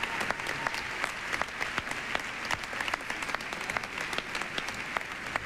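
A large audience applauding: many people clapping together in a dense, steady patter.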